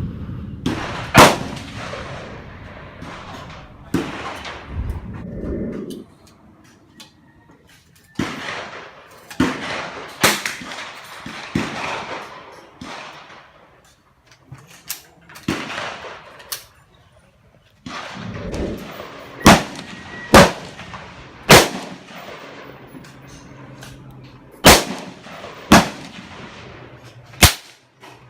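Repeated gunshots: about a dozen sharp reports at irregular intervals, several close together in the second half, each with a brief echo.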